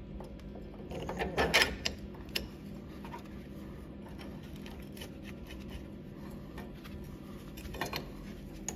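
Metal parts being handled and knocked against each other: a cluster of clicks and clunks about a second in and another near the end, over a steady low hum.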